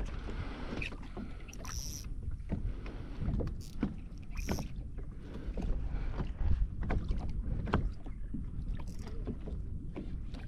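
Kayak on the water: irregular small knocks and splashing against the hull over a low rumble of wind.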